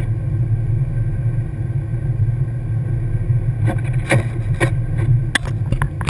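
A car driving on a snow-covered road, heard inside the cabin: a steady low rumble of engine and tyre noise. Several sharp clicks come in the second half, the last few close together near the end.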